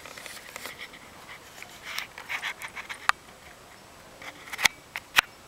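Scratchy scuffing and scraping in short bursts, then three sharp clicks: one about three seconds in and two close together near the end.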